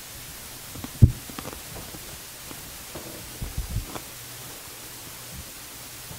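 Steady hiss with a faint low hum, broken by one hard, muffled thump about a second in and a few softer knocks around three and a half to four seconds in.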